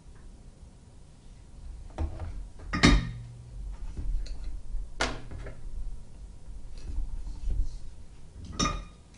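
Several sharp clinks and knocks of small metal tools and parts handled on a workbench during soldering, the loudest about three seconds in.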